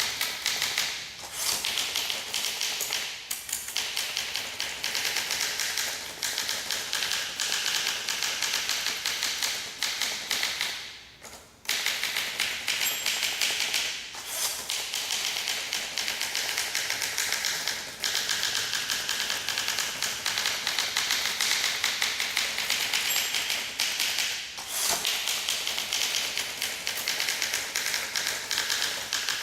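1958 Olympia SM2 manual typewriter being typed on: a fast, steady run of keystroke clacks with a few brief pauses, the longest about eleven seconds in.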